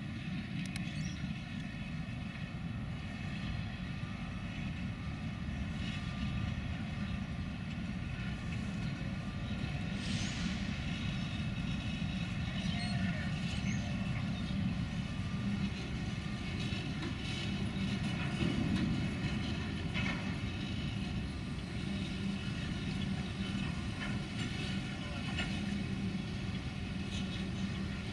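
Aberdeen and Rockfish Railroad freight train of covered hopper and tank cars rolling slowly past: a steady low rumble of wheels on rail, with scattered clicks and faint high ringing tones.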